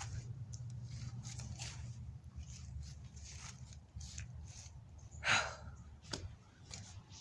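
Soft rustling and handling noises over a low steady hum, with one short, sharp breathy sound, a gasp or hiss, about five seconds in.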